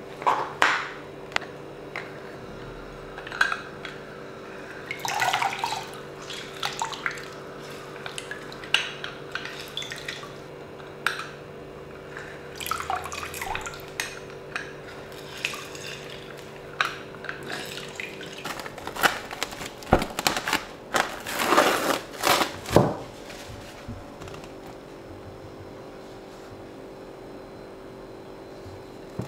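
A knife cutting oranges on a plastic cutting board and a hand-held citrus squeezer pressing the halves, with juice dripping and splashing into a glass bowl: scattered knocks, clicks and clinks, busiest about two-thirds of the way through, over a steady low hum.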